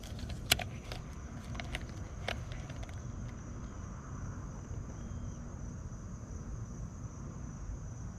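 A few sharp clicks from a baitcasting reel and rod being handled, bunched in the first three seconds, the loudest about half a second in. They sit over a steady high insect drone and a low rumble.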